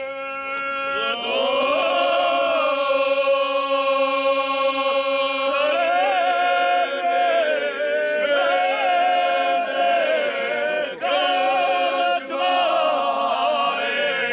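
A group of men singing a bećarac, a traditional folk song, unaccompanied. One voice holds a note, the others join about a second in, and they sing long, drawn-out notes together with short breaks between phrases.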